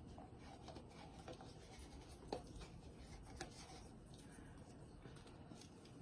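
Near silence with faint scraping of a spatula scooping sour cream out of a tub, and a couple of light taps about two and a half and three and a half seconds in.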